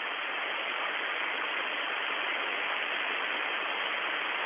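Steady hiss of static on an open radio voice channel.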